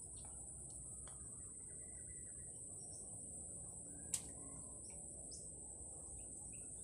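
Steady high-pitched insect drone with short bird chirps scattered through it. A single sharp click about four seconds in.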